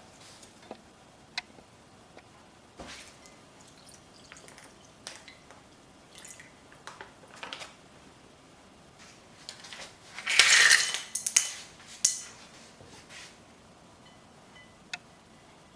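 Kitchen handling sounds: scattered light clicks and knocks of dishes and containers being picked up and set down, with a louder burst of noise lasting about a second and a half, about ten seconds in.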